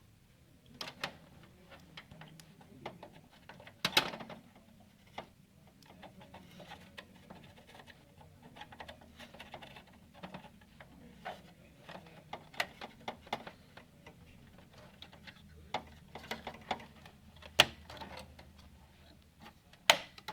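Irregular clicks, taps and knocks of hands working plastic and metal parts inside a desktop computer case, with a few sharper clicks, the loudest about 4 s in and twice near the end, over a faint steady low hum.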